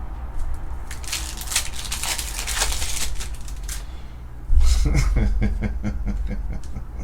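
Trading cards being slid and flipped through by hand, a papery rustle, then a sudden low thump about four and a half seconds in followed by a rapid run of ticks.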